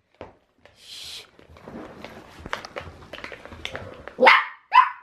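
Dachshund puppy giving two short, high barks near the end, after a stretch of scuffling and clicking.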